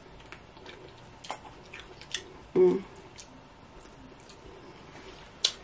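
Close-miked eating sounds of steamed blue crab: soft wet smacks and small clicks as seasoning is sucked off the fingers and the meat is chewed, with a short hummed 'mm' about two and a half seconds in and a sharp click near the end.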